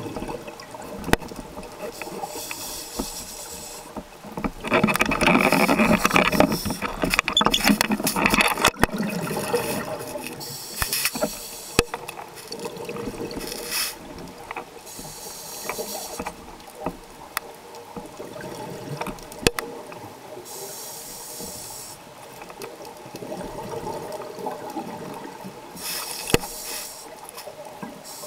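Scuba regulator breathing recorded underwater: hissing inhalations alternating with rushing bursts of exhaled bubbles, the loudest exhale about five seconds in and lasting several seconds. Scattered clicks and a faint steady hum run underneath.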